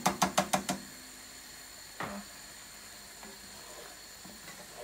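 Serving spoon and wooden spatula knocking quickly against a frying pan while vegetables are stirred: about six fast knocks in the first second, then one more about two seconds in. A steady faint hiss runs underneath.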